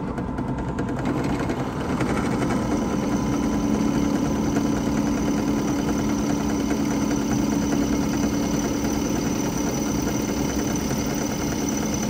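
Benchtop drill press running steadily as its 7/16-inch bit cuts through an aluminium compressor manifold block. The motor's hum grows louder about two seconds in.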